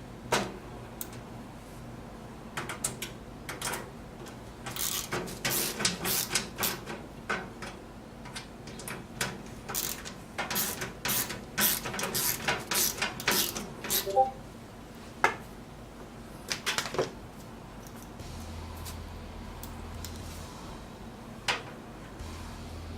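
Irregular clicks, taps and knocks of parts being handled and fitted while a PC case is reassembled, busiest in the middle, with a low hum coming and going near the end.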